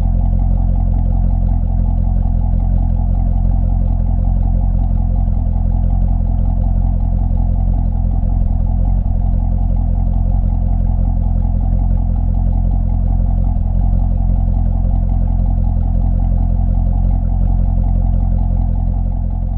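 2012 Corvette C6 Grand Sport's 6.2-litre LS3 V8 idling steadily through its stock exhaust with the NPP valve open, close-miked at the tailpipe. The sound fades out near the end.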